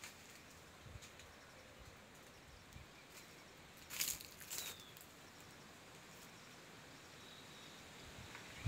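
Faint outdoor ambience, with a short crackly rustle about four seconds in and a faint high thin note near it and again near the end.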